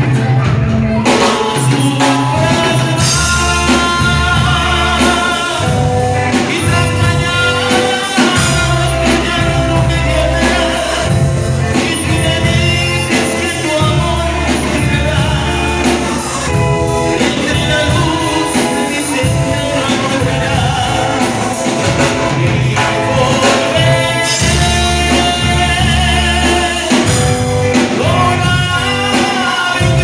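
Live band playing with a male singer, amplified through an SP Pelican PA system with one subwoofer per side: electric bass, electric guitar, drum kit and keyboards under the vocal, with a strong, steady bass line.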